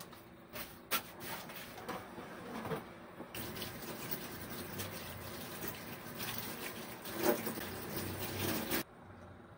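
Tap water running into a stainless steel sink while dishes are rinsed under it. A few clinks of dishes come first, then the running water starts about three seconds in and stops suddenly near the end.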